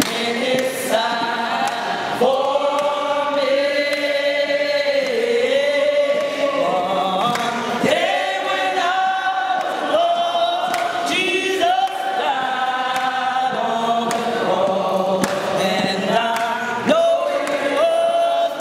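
Gospel choir singing a hymn, many voices together holding long notes.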